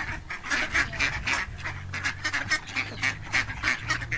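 Ducks quacking in quick, repeated calls, about four or five a second.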